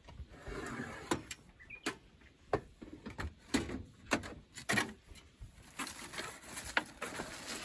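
Gear being rummaged through in a wooden drawer and plastic storage bin: a rustle near the start, then a string of sharp knocks and clatters as items are moved and set down.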